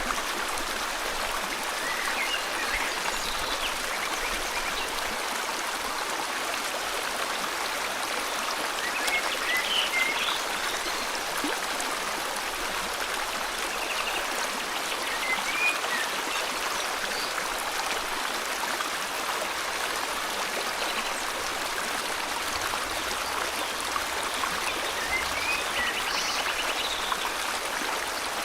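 River water flowing steadily, with a few short bird chirps scattered every several seconds.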